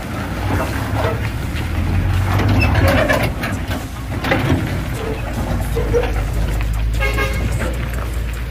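Heavy truck's diesel engine running under load as the truck and its drawbar trailer creep round a tight bend, with a short horn toot about seven seconds in.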